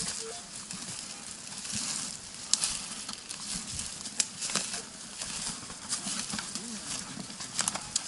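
Footsteps through dry leaf litter and twigs on a forest floor: steady rustling with a few sharp snaps of twigs.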